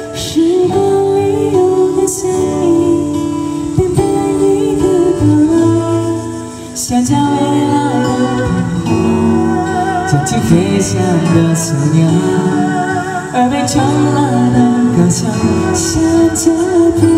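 Live music: a song with singing and an erhu (Chinese two-string fiddle) carrying sustained melody lines with vibrato over instrumental accompaniment.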